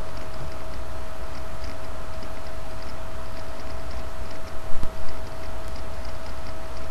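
Steady electrical hum with a constant whine from a PC microphone recording, and faint ticking a few times a second. There is a brief wobble in level about four and a half seconds in.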